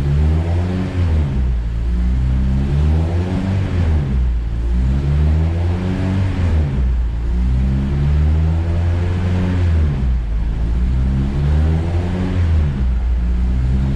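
Honda Civic engine revving up and dropping back about six times as the car is driven through the gears on a freshly rebuilt, still-dry K-series transmission.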